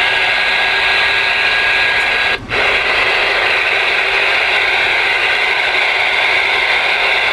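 Ranger RCI-2970N2 ten-meter radio's speaker hissing with steady receiver static, the squelch open after the radio is connected to the antenna. The hiss cuts out for a moment about two and a half seconds in, then resumes.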